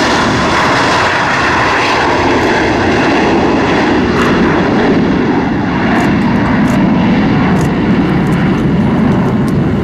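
Gulfstream business jet's twin rear-mounted turbofan engines at takeoff power as it lifts off and climbs away: loud and steady, with a deeper rumble coming up in the second half.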